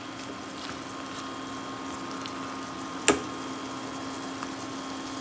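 Sliced hot dogs bubbling and sizzling in a soy sauce and sugar glaze in a stainless pan as they caramelize, stirred with a wooden spatula, over a steady low hum. One sharp knock about three seconds in.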